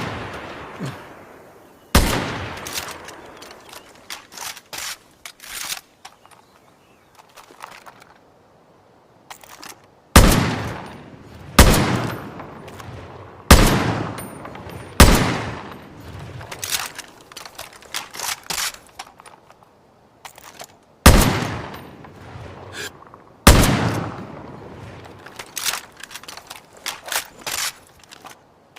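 Makeshift sound effect of an SVD Dragunov sniper rifle firing: about seven loud single shots spaced a second or more apart, each with a long echoing tail, with quieter cracks and clicks between them.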